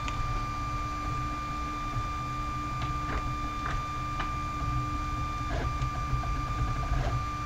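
Printrbot 3D printer running, its stepper motors giving a steady high whine, with a few light clicks and ticks over it.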